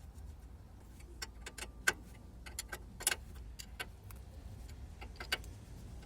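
Irregular sharp metallic clicks and knocks, as of hand tools and fasteners handled on car suspension parts, over a faint low hum; the loudest knocks come about 2 s, 3 s and 5 s in.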